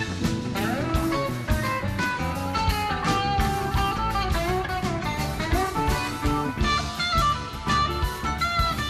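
Live rock band playing an instrumental jam: an electric lead guitar solos over bass guitar, keyboards and two drum kits.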